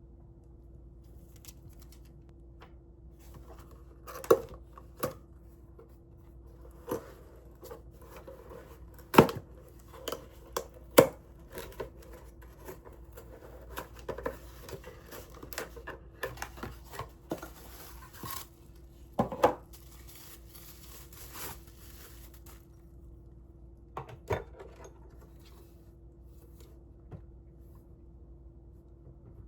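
Irregular clicks and knocks with some rustling, as of objects being handled, over a faint steady hum.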